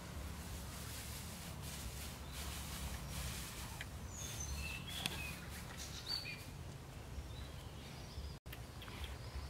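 Dry straw and fresh-cut grass rustling as handfuls are laid into a bamboo feeding trough, over a steady low background rumble, with a few short bird chirps around the middle.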